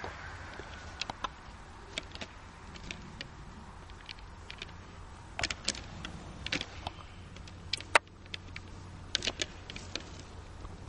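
Fallow deer bucks fighting, their antlers clacking and rattling together in irregular sharp knocks, some in quick clusters, the loudest about eight seconds in, over a steady low rumble.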